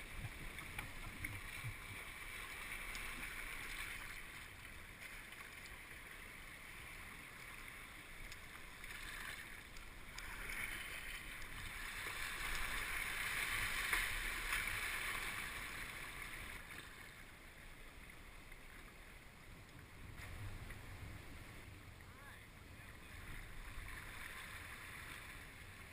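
Water splashing and sloshing around a kayak, a steady wash that swells to its loudest in the middle and then eases.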